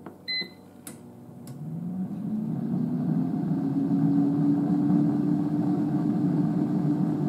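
Proscenic T21 air fryer started from its touch panel: a single short beep, a couple of faint clicks, then its fan motor spins up with a rising hum and settles into a steady whir of circulating air.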